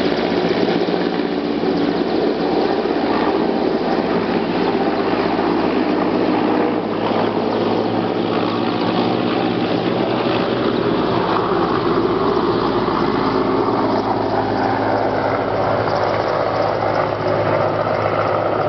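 Mil Mi-8-type transport helicopter taking off and flying away, its engine and rotor noise loud and steady throughout.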